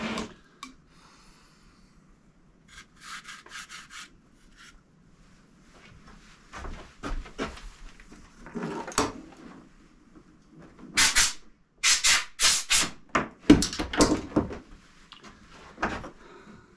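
Cloth rag rubbed along the rifle's wooden forend in groups of short wiping strokes, the loudest and quickest run coming near the end.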